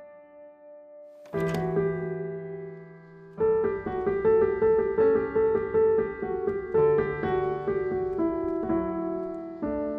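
Piano music on the soundtrack: a held chord comes in about a second in, then a repeating figure of single notes, roughly two a second, from about three seconds in.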